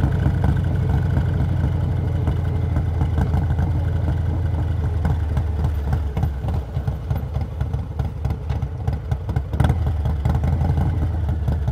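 Harley-Davidson Milwaukee-Eight 117 V-twin in Stage 2 tune running under way on a motorcycle, a steady low engine note for about five seconds that then turns uneven and a little quieter.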